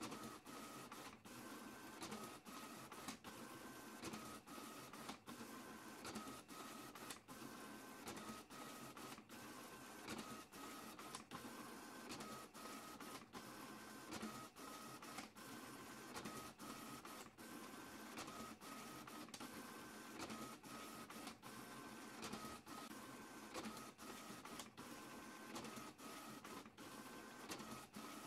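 Printer running a print job: a steady mechanical whir broken by short clicks about once a second, its pitch stepping back and forth between two tones.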